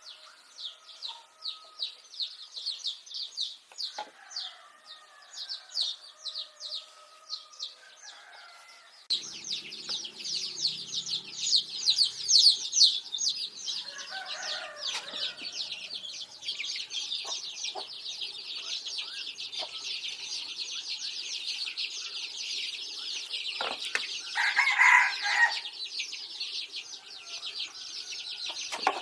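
Chickens clucking, with a rooster's call about 25 seconds in, over a dense high chirring that runs throughout.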